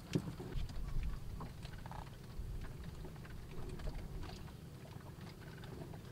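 Hands working wet mud on a clay stove: soft thuds and small scrapes, loudest just after the start and about a second in, over a steady low rumble.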